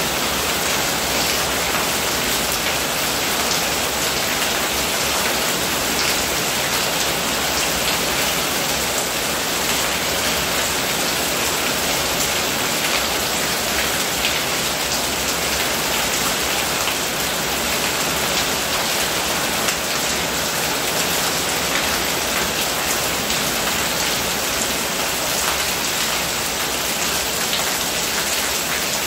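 Steady rain falling on roofs and ground, with a stream of runoff pouring off a roof edge.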